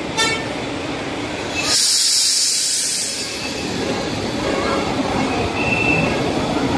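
Bus air brakes letting out a loud hiss of air for about a second and a half, about two seconds in, over steady wet-street traffic noise. A short high squeal follows near the end.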